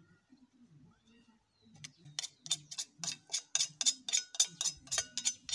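Rapid, sharp knocking of a wooden stick against the metal blade of a hand hoe, about five strikes a second. It starts nearly two seconds in and has a slight metallic ring.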